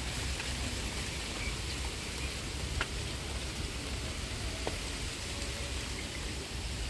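Steady wind buffeting the microphone and hissing through grass and leaves, with two faint small ticks about three and five seconds in.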